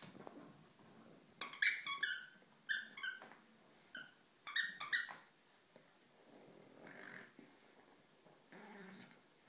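French Bulldog puppy playing with her toys: a run of sharp, high-pitched squeaks in several quick groups over about four seconds, followed by a quieter low rumble near the end.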